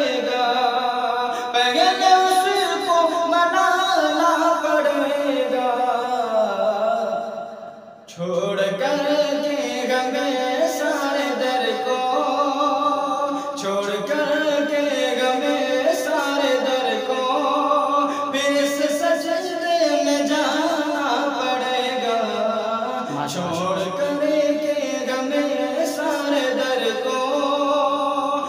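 A man singing an Urdu devotional poem (kalaam) in long, melodic phrases, with a short break for breath about eight seconds in.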